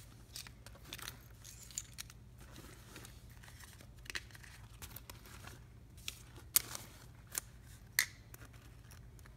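Miniature doll accessories being picked up off a tile floor and packed into a small fabric backpack: faint scattered taps and clicks of small plastic items with light rustling, and a few sharper clicks in the second half.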